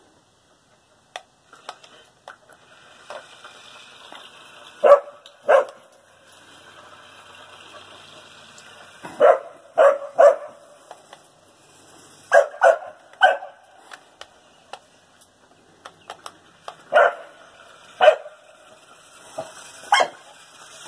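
A dog barking in short groups of two or three sharp barks, a few seconds apart, at a toy RC car it is playing with.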